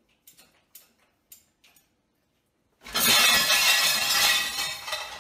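Light clinks of dishes as a dog noses through an open dishwasher's rack. Then, about three seconds in, a sudden loud crash of crockery falling onto a tile floor clatters for about two seconds.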